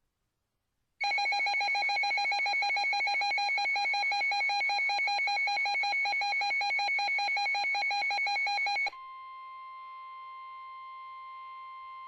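A weather radio receiver sounding its alert alarm: a loud, rapid electronic beeping starts about a second in and lasts about eight seconds, signalling a warning received. It then switches to a quieter steady single tone, the NOAA Weather Radio 1050 Hz warning alarm tone, for about three seconds before the warning broadcast begins.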